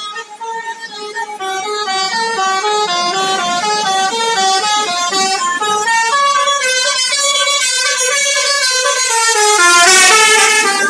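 Telolet horn on an NPM bus playing a tune: several air-horn tones step from note to note a few times a second. It grows louder about a second and a half in and is loudest and harshest near the end.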